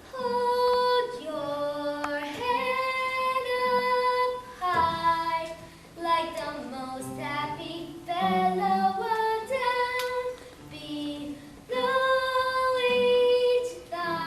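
Children singing a melody in phrases, with several long held notes.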